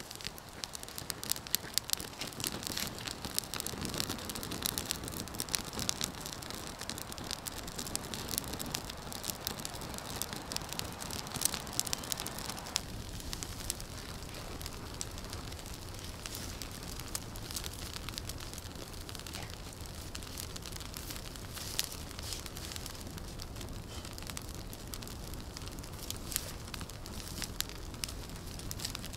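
Wood fire crackling with many sharp pops. A steady hiss runs under it and stops abruptly about 13 seconds in.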